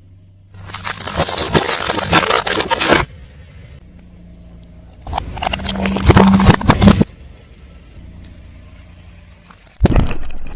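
Car tyre rolling over and crushing brittle objects: three separate bursts of dense crunching and crackling, the first lasting about two and a half seconds, the second about two seconds, and a third starting near the end. Quiet gaps with a low hum lie between them.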